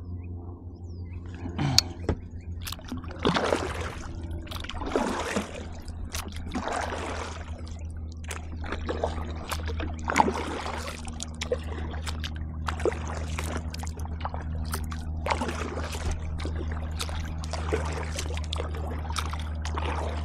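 Kayak paddle strokes in the water, a swish and splash with dripping roughly every one and a half to two seconds, with a few sharp knocks. A steady low rumble runs underneath.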